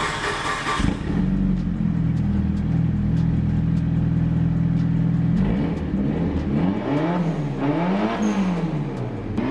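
Mitsubishi Lancer Evolution VI Tommi Mäkinen Edition's turbocharged 4G63 inline-four starting just under a second in and idling steadily through a full-titanium Kakimoto exhaust. After about five seconds it is blipped in a series of quick revs, each rising and falling.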